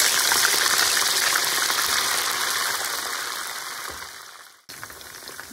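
Pieces of goat meat sizzling as they fry in hot oil in a frying pan: a loud, even hiss with many small pops. It fades out about four seconds in, then comes back much quieter.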